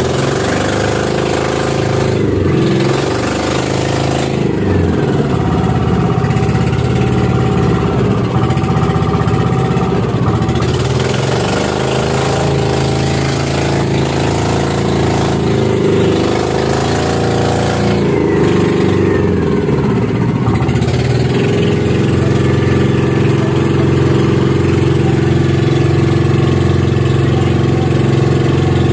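Diesel engine of a motorised outrigger bangka running steadily under way. Its speed dips and picks up again twice, briefly.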